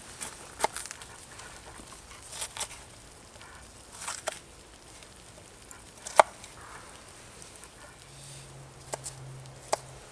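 Kitchen knife slicing a red bell pepper on a wooden cutting board: a handful of sharp, irregular knocks of the blade on the board, the loudest about six seconds in.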